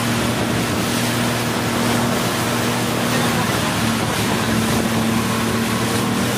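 Jet ski engine running steadily at speed, a low drone under heavy rushing wind and water spray on the microphone.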